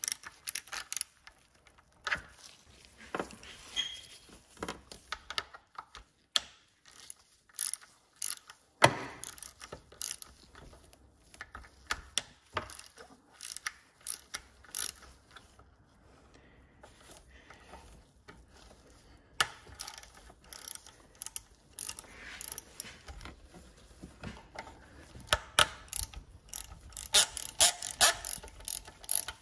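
Hand ratchet wrench clicking in short, irregular runs as the bolts holding a BMW E46's VANOS unit on are loosened, with a sharp knock about nine seconds in and a quick flurry of clicks near the end.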